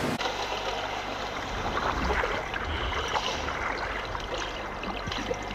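Water splashing and bubbling around a helicopter underwater-escape trainer ditched in a training pool, a choppy churning with many small splashes.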